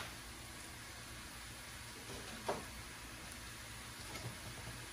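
Quiet kitchen room tone, a steady low hiss, with one soft knock about halfway through and a few faint ticks near the end.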